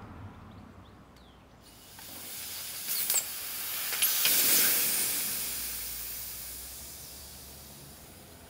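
Compressed air hissing out of a leaking adapter fitting between an air bottle and the rifle's breech. The hiss starts about a second and a half in, with a few sharp clicks, swells to its loudest near the middle, then slowly fades.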